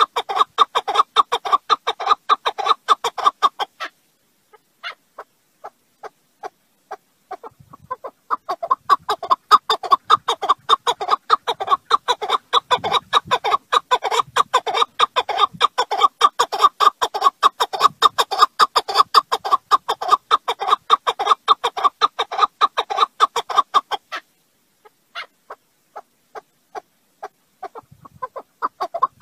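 Partridge calling: long runs of rapid, loud clucking notes. The calling breaks twice into scattered single notes, about four seconds in and again near the end, before the fast runs resume.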